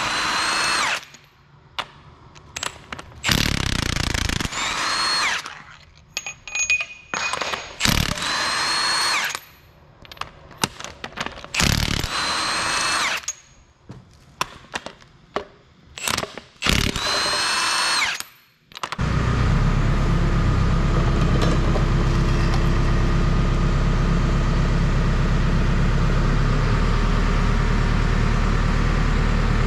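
Impact wrench spinning out cylinder head bolts in five short runs of one to two seconds, its motor pitch climbing and dropping on each, with small clicks between. About two-thirds of the way through, a loud, steady machine drone with a low hum starts and carries on.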